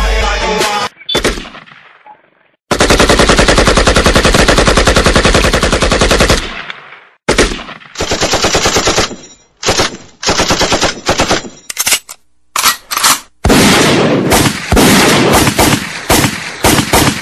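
Bursts of rapid automatic gunfire: one long burst of about four seconds, then several short bursts, then another long run near the end.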